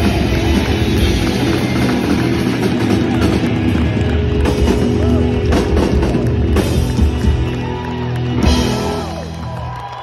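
Live rock band with electric guitars and a drum kit playing loudly through a venue PA. Near the end the band winds the song down and crowd noise comes up.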